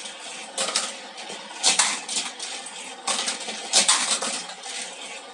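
Die-cast Hot Wheels toy cars clattering along a plastic track set: bursts of sharp clicks and rattles, loudest about two seconds in and again near four seconds.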